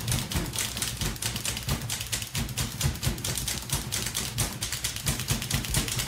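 Mechanical typewriter being typed on quickly: a fast, steady run of sharp key clacks, several a second.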